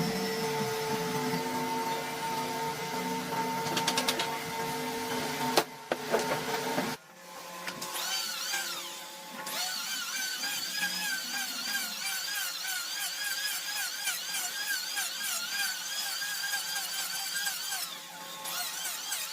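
Electric power tool running with a steady whine, then, about seven seconds in, a different tool sound with a high wavering pitch that repeats rapidly.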